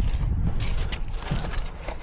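Lock-picking tools working in a garage door lock cylinder: a few small metallic clicks and scrapes over a steady low rumble of wind on the microphone.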